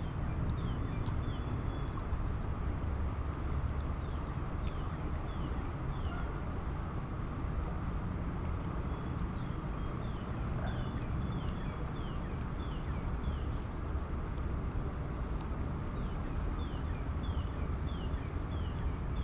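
Steady rush of flowing creek water, with birds chirping over it in a long run of short, high, falling notes repeated over and over.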